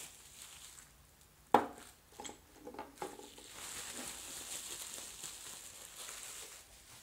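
Plastic bubble wrap and packaging film crinkling as it is pulled off the parts of a faucet water filter, with a sharp knock about a second and a half in and a few light taps just after.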